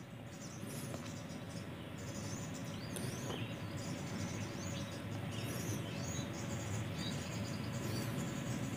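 Quiet outdoor ambience: a low steady background hiss with scattered short, high chirps of small birds.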